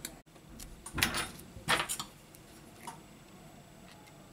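Handling noises on a workbench: a few light clicks and taps, with two short scraping rustles about one and two seconds in, as tools and a phone display module are handled.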